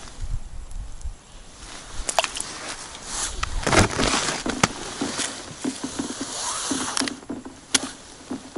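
Rustling of heavy winter clothing and boots shuffling and crunching in snow on the ice, with scattered small clicks and knocks.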